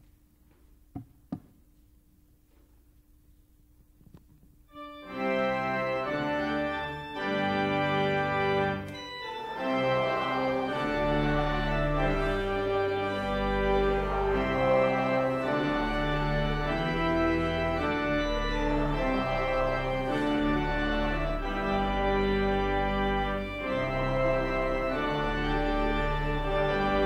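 Two short clicks about a second in, then a church organ starts playing about five seconds in: sustained full chords over deep bass notes, the postlude after the benediction.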